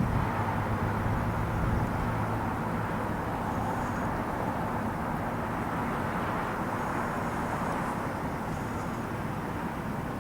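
Steady low rumble of an aircraft in flight, slowly fading.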